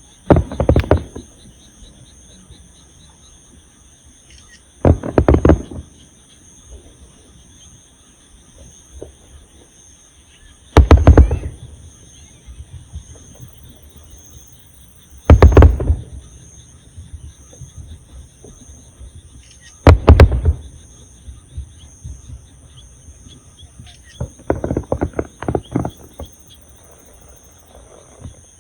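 Aerial fireworks shells bursting with loud booms about every five seconds, five in all, then a quick run of smaller crackling reports near the end. Insects trill steadily underneath.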